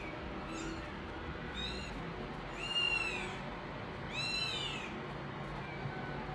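Kittens mewing: four or five short, high-pitched calls that rise and fall in pitch, with the loudest about three seconds in.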